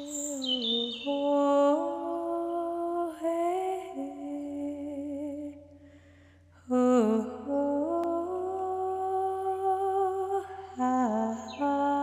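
Slow wordless meditation melody of long held notes that slide from pitch to pitch, hummed or played, with a few short high bird chirps over it. It breaks off briefly about six seconds in, then resumes.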